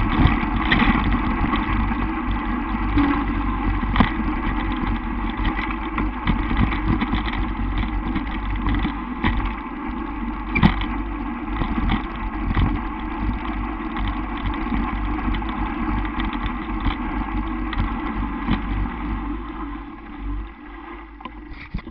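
Mountain bike rolling fast over a gravel and dirt track: wind buffeting the microphone and tyres rumbling over stones, with frequent small rattles and knocks from the bike. The sharpest knocks come about 4 and 10½ seconds in, and it grows quieter near the end.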